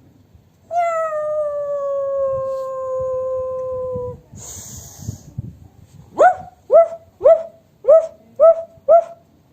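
A person's voice imitating animals: one long howl, like a wolf, that slowly falls in pitch, then a short snake-like hiss, then six quick yips about two a second.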